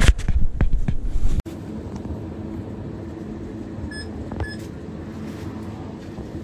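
A checkout barcode scanner beeps twice, about half a second apart, over the steady hum of the shop. Before that, about a second and a half of loud knocks and rustling from handling.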